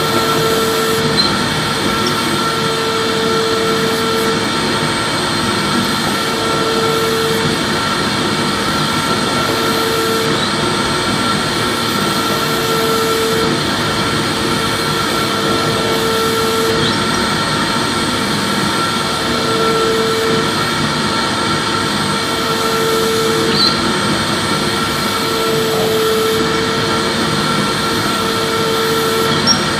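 Vacuum cleaner running steadily: a constant rush of air with a high motor whine, and a lower hum that swells and fades every few seconds.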